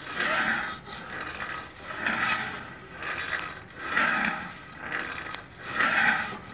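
Khukuri blade being sharpened by hand: steel scraping in rhythmic back-and-forth strokes, about one a second, every other stroke louder.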